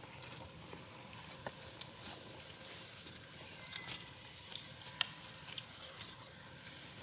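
Faint outdoor ambience with a high chirping call that repeats every second or so, loudest about halfway through. There are a few faint clicks, one sharper about five seconds in.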